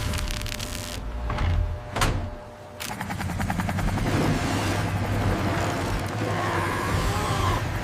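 Cartoon vehicle engine sound effect running steadily, with a sharp knock about two seconds in, after which the engine sound briefly drops and then builds again.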